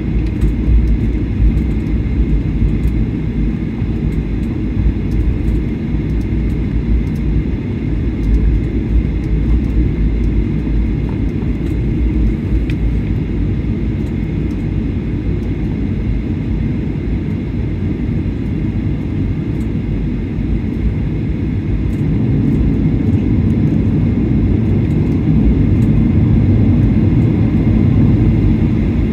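Cabin noise inside a Boeing 737-800 taxiing: the CFM56-7B engines' steady low rumble at taxi power with a faint steady whine, and occasional light clicks. It grows a little louder in the last several seconds.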